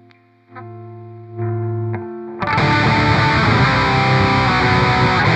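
Electric guitar, a PRS SE Custom 24-08 fitted with PRS USA 85/15 TCI humbuckers, through a high-gain distorted amp. A chord is picked softly, then twice more, each time harder, then struck hard about two and a half seconds in, so that it rings out loud and fully saturated. This tests how much dynamic range the pickups keep under heavy distortion.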